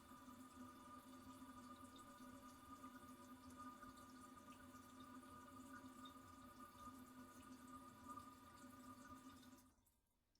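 Faint, steady hiss and whine of a toilet tank refilling through its fill valve. It cuts off suddenly near the end as the valve shuts, the tank full.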